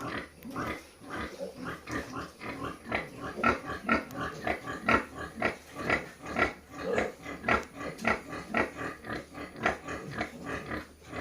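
Month-old piglets grunting, short calls following one another at about two or three a second.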